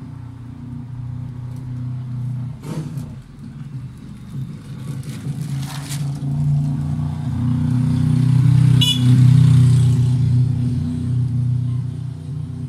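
A motor vehicle's engine running, with a steady low hum that grows louder to a peak about nine seconds in and then fades, as a vehicle passes on the street.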